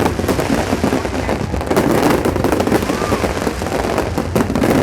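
Fireworks display going off continuously, a dense run of bangs and crackles over a low rumble, with crowd voices underneath.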